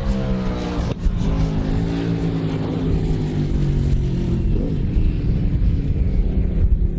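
Britten racing motorcycle engine running hard, its pitch rising into a sudden break about a second in, as at a gear change, then holding steady.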